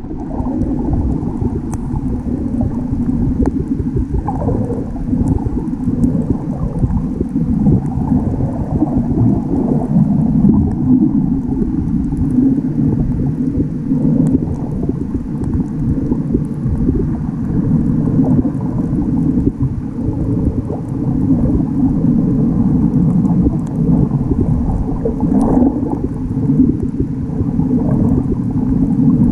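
Muffled underwater rumble and gurgle of water moving around a submerged camera's microphone, steady throughout, with faint scattered clicks.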